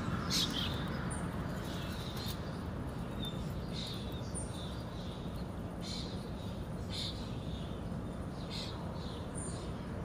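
Birds chirping: short, high chirps about once a second, irregularly spaced, over a steady low background noise.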